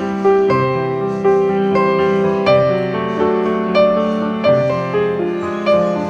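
Background piano music, single notes and chords struck about once or twice a second and left to ring.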